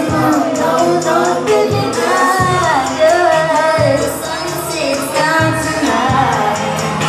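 A woman singing live into a microphone over amplified music with a bass line and a steady drum beat.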